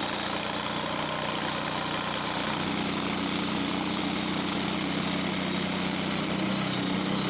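Petrol engine of a portable sawmill running steadily while milling logs, its pitch shifting slightly a couple of times.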